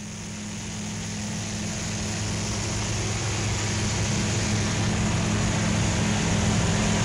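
Cabin noise of a light single-engine propeller airplane in flight: a steady engine-and-propeller drone with rushing air, fading up gradually.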